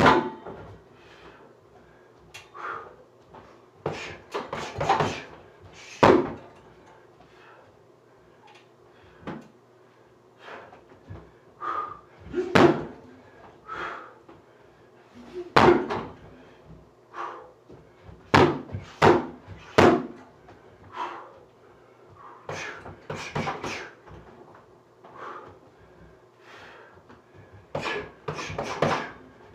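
Kicks and punches thudding on a hanging Everlast heavy bag, single strikes and quick flurries at irregular intervals.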